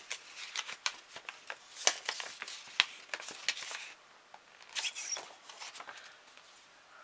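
Paper rustling and crinkling as a letter and its contents are unpacked and handled: a busy run of short crackles and light clicks for about four seconds, a pause, then another short burst around five seconds in.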